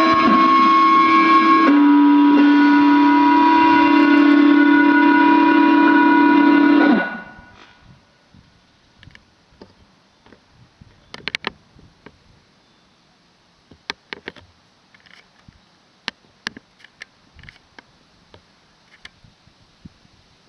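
Closing notes of a town's 5 p.m. chime melody over a wired-broadcast public loudspeaker. The last note is held for about five seconds, then dies away; after that there are only scattered faint clicks and taps.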